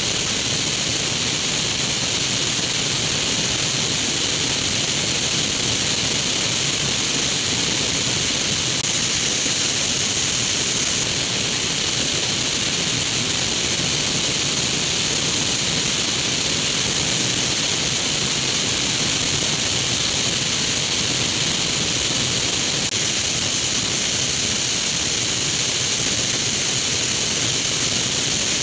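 Steady rush of airflow and engine drone from a Grob G109 motorglider in flight, heard through a camera mounted on its wing. The noise is constant throughout, with its hiss dominating.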